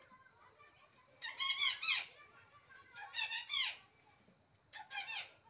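Young goat kids bleating: several short, high, quavering calls in three clusters.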